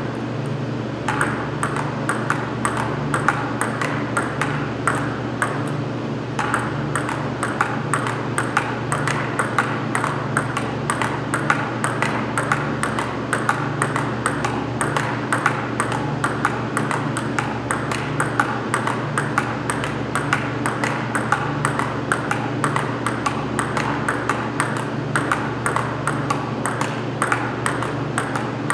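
Table tennis balls being struck and bouncing: a fast, irregular run of sharp clicks, several a second, over a steady low hum.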